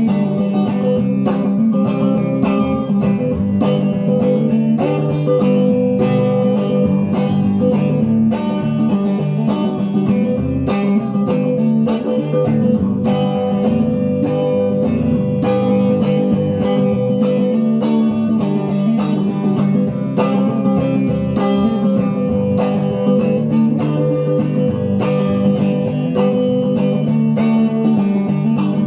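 Electric guitar played continuously through a restored 1963 Fender Ecco-Fonic solid-state tape echo unit, a steady run of picked notes with the echo in the sound.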